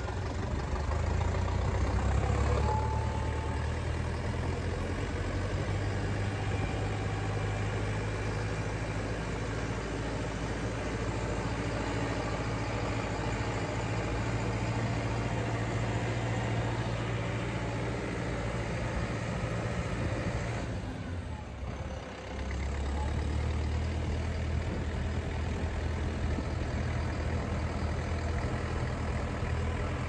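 Tractor engine running steadily as the tractor drives with a silage feed-out wagon in tow; the hum drops away briefly about two-thirds of the way through, then comes back at the same level.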